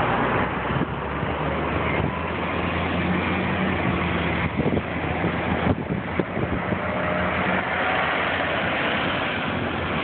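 Road traffic on a busy multi-lane avenue: cars passing, with a city bus's engine humming close by through the middle.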